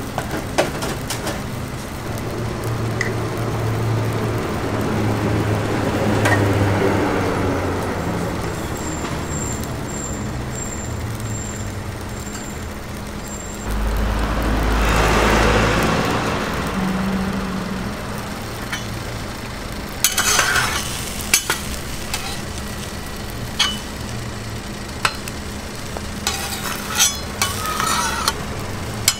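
Egg batter sizzling on a flat-top griddle, with a steady hum behind it and a low rumbling swell of a few seconds about halfway through. In the last ten seconds a metal spatula clicks and scrapes against the griddle and the metal egg moulds.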